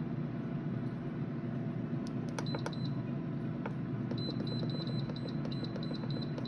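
Instant Pot control panel beeping as its buttons are pressed to set the pressure-cook time. Short, high beeps: two or three about two and a half seconds in, then a quick run of about four a second from about four seconds in. A steady low hum runs under them.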